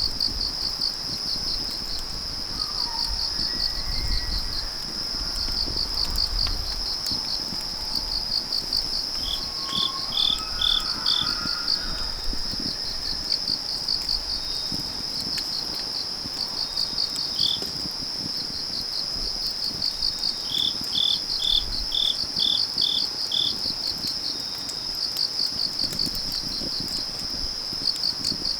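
Crickets chirping: a steady, fast-pulsing trill, joined a few times by a second, lower chirp in short runs of four to seven pulses.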